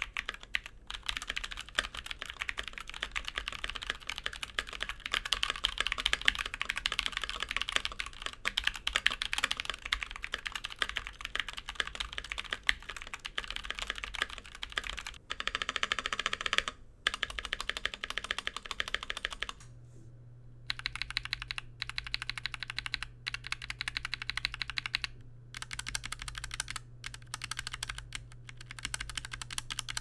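Mechanical keyboard typing on a hot-swap polycarbonate Think6.5 with a 4.5 mm polycarbonate plate, fitted with stock Naevy tactile switches: fast two-handed typing with UHMWPE stems, then with the standard POM stems and a few spacebar presses about halfway. From about twenty seconds in, the keystrokes come as separate short runs of presses with brief pauses between.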